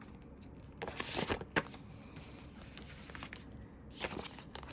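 Rustling and crinkling of album packaging and photo cards being handled, in two short bursts: about a second in and again near the end.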